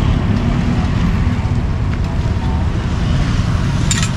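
Steady low rumble of street traffic and engines, with one sharp knock near the end.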